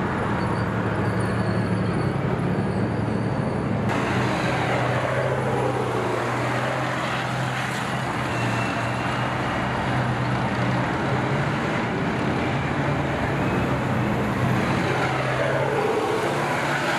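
Tank column driving past, engines running with a steady low drone under heavy mechanical noise. The sound changes character about four seconds in, and sweeps in pitch come and go as vehicles pass close by.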